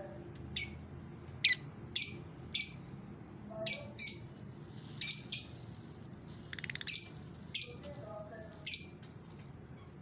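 Lovebirds calling: about a dozen short, sharp, high-pitched chirps spaced irregularly, with a quick stuttering chatter a little past the middle.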